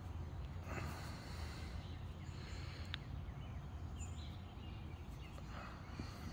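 A person breathing close to the microphone, a few soft breaths over a low steady rumble, with one faint click about three seconds in.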